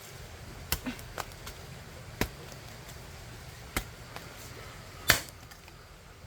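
A digging tool chopping into soil while digging for earthworms, about six short, irregular strikes; the loudest comes about five seconds in.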